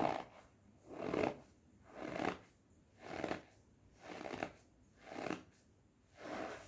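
Cornstarch squeezed over and over, giving a squeaky crunch with each squeeze, about once a second.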